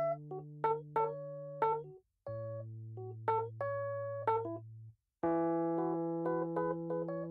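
Background music on a keyboard: short struck notes over long held low notes, cutting out completely twice for a moment, about two and five seconds in.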